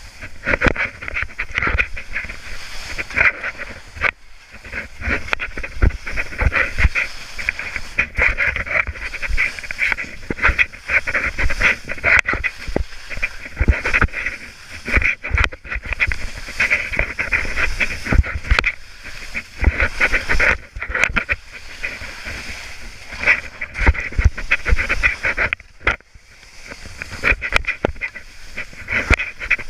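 Skis hissing and scraping over soft spring snow on a run down, the hiss swelling and fading every second or two with the turns. Wind rumbles against the microphone underneath.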